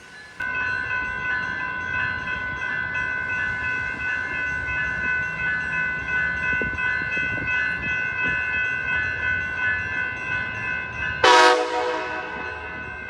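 Train's multi-tone air horn sounding one long, steady blast that starts suddenly and holds for about eleven seconds, over the low rumble of the train. Near the end a brief, much louder blast cuts in, and the horn then goes on more quietly.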